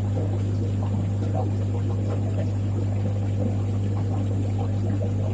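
Steady low electrical hum of running aquarium equipment, with faint bubbling and trickling water over it.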